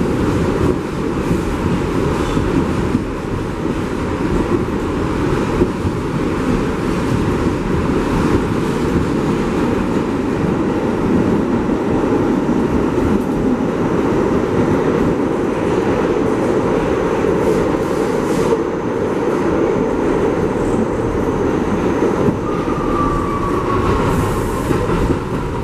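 New York City subway train (a 1 train) running along the track: a loud, steady rumble of wheels on rails with clickety-clack. Near the end a brief thin squeal rises over the rumble and falls slightly in pitch.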